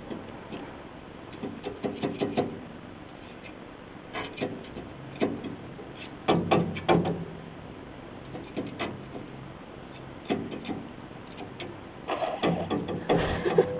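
Irregular clusters of sharp knocks and clatters, several in quick succession each time, with short pauses between the clusters.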